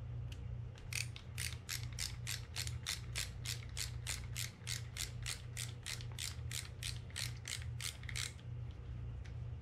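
Screwdriver ratchet clicking in an even run of about four clicks a second, lasting some seven seconds, as a small side-plate screw is backed out of a Penn 320GTi levelwind fishing reel.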